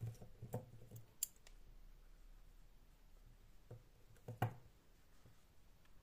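Faint clicks and light taps of small 8 mm plastic safety eyes being handled and pushed into a crocheted toy. There are about five separate clicks, the loudest about four and a half seconds in.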